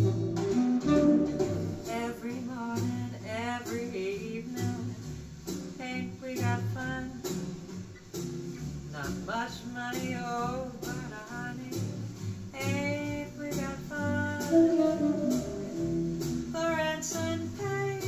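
A recorded song with a singing voice and instrumental backing, played back through Infinity SM65 bookshelf speakers and picked up in the room.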